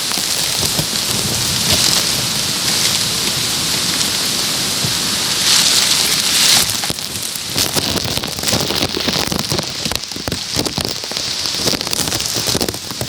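Heavy wind-driven rain from a downburst storm, close up and striking the plastic bag over the camera. It surges to its loudest about six seconds in, then eases a little and turns gustier and more uneven.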